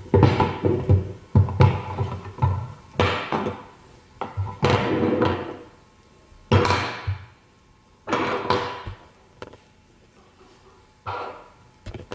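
Hard plastic parts of a manual meat grinder knocking, clattering and scraping as they are handled, fitted together and set down on a wooden table. The sounds come in a string of short bursts with pauses between them, busiest at the start and thinning out toward the end.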